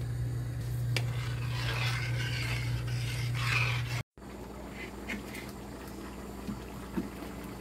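A spoon stirring and scraping rice and spinach in liquid in a metal pot, over a steady low hum. About four seconds in the sound cuts off abruptly. A few faint rustles and ticks of plastic cling film being smoothed flat on a table follow.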